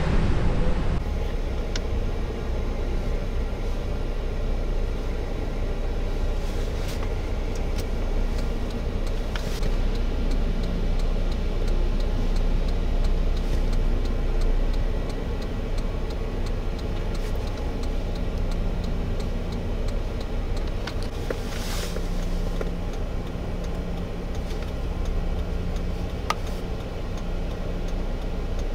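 A road vehicle running with a steady low rumble and a few faint clicks.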